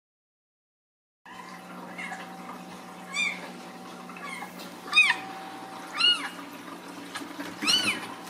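Young Ragdoll kittens mewing: four short, high-pitched mews that rise and fall, a second or two apart, over a steady low hum.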